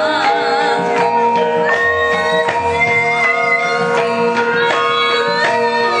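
Javanese gamelan ensemble playing: struck bronze metallophone notes ring on as held tones, with a higher melodic line gliding above them and a drum beneath.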